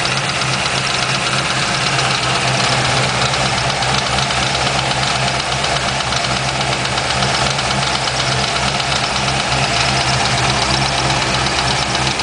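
2004 Corvette Z06's LS6 V8 idling steadily with a fast, even ticking riding over the engine note.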